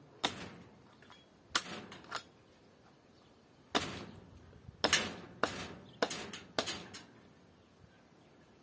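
A series of sharp knocks and clacks, about eight, some in quick pairs, from handling a hanging lamb carcass with a metal skewer pushed through it.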